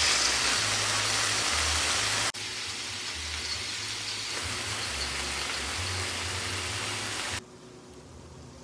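Food sizzling in a hot frying pan, a steady hiss that drops sharply a little past two seconds in and falls much quieter near the end.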